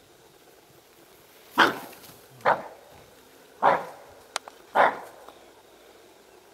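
Four loud, harsh barks about a second apart, each falling away quickly: the dog-like alarm bark of a bushbuck that has spotted the stalking leopard.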